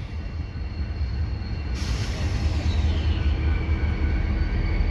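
CN diesel-electric freight locomotives rumbling slowly across a steel railway bridge, a deep, steady engine drone. About two seconds in a hiss joins, with a whine that falls in pitch.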